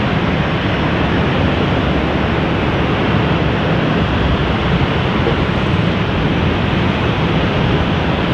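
Steady jet airliner engine noise, an even rushing sound that holds the same level throughout.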